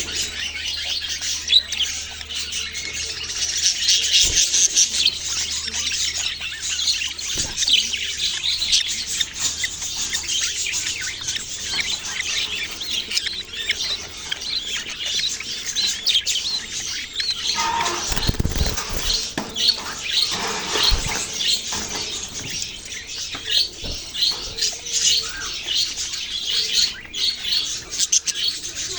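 Small parrots such as budgies chirping and chattering without a break, many quick high calls overlapping. A few low thumps come about two-thirds of the way through.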